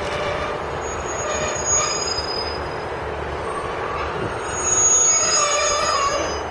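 GWR Class 150 Sprinter diesel multiple unit drawing into the platform and slowing, its wheels squealing shrilly twice, about a second in and again, louder, from about four seconds in, over a low steady rumble.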